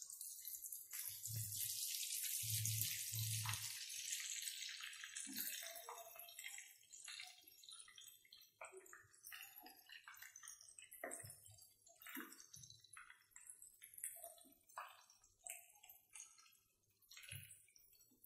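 Batter-coated potato balls (aloo bada) deep-frying in hot oil in a kadhai: a dense sizzle for the first few seconds that thins into scattered crackles and pops as the frying settles on a low flame. Three dull knocks come in the first four seconds.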